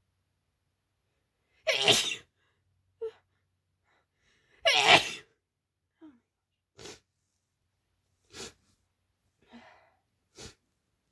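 A woman with a cold sneezing hard twice, about three seconds apart, followed by several short, much quieter sounds.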